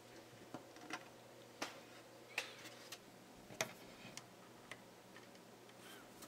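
Faint, irregular clicks and taps, about a dozen spread unevenly and loudest about two and a half and three and a half seconds in: needle-nose pliers and fingers handling a cable in a hole in a pine body.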